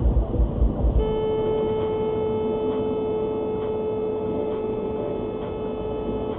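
A car horn held in one long steady blast on a single note, starting about a second in and cutting off abruptly more than five seconds later. Before it, low thudding at about four beats a second.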